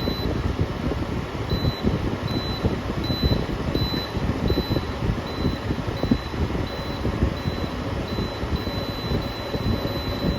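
Frigidaire FFRA052WA1 5,000 BTU window air conditioner running, its fan blowing a steady rush of air, with a faint high whine that comes and goes.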